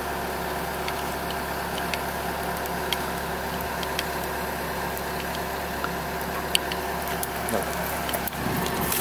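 Steady hum of an idling excavator's diesel engine, with a few faint clicks from a hand lever grease gun being pumped into a bucket linkage pin's grease fitting.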